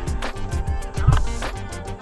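Background music with a steady driving beat: regular drum hits under quick, even high ticks.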